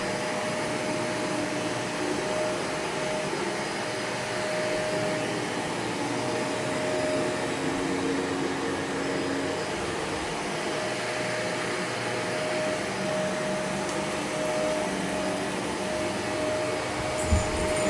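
Household vacuum cleaner running steadily, a constant whine over its rushing noise, with a short thump near the end.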